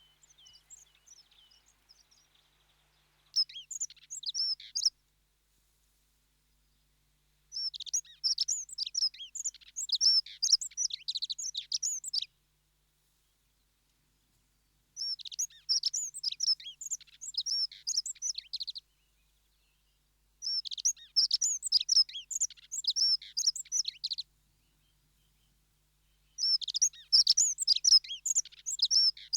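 Dunnock (hedge sparrow) singing: five bursts of fast, high warbling song, each a couple of seconds to about five seconds long, with pauses of two to three seconds between them.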